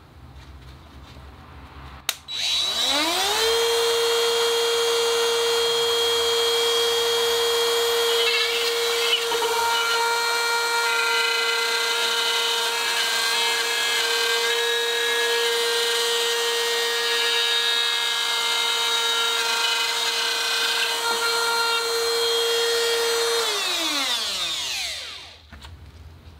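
Parkside PRSA 20-Li A1 cordless rotary drywall cutter switched on with a click about two seconds in, its motor soft-starting with a rising whine. It runs at a steady high whine while its 1/8-inch bit cuts a circle in plasterboard, then spins down with a falling whine near the end.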